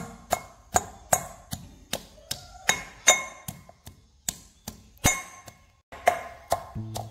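Background music: an even beat of sharp, clinking percussion hits, about two and a half a second, each ringing briefly at a bell-like pitch, with low pitched notes coming in near the end.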